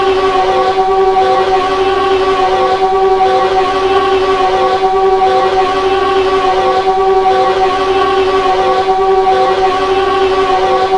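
Star Wars droid starfighter engine sound effect: a steady, loud drone made of several held tones, with a soft throb about once a second.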